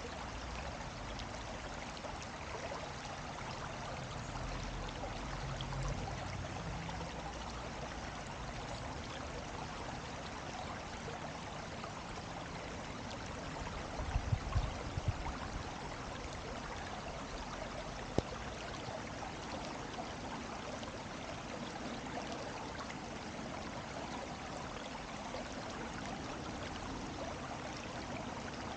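Steady rush of flowing water. Brief low rumbles come around 5 s and again around 14–15 s, and there is a single sharp click near 18 s.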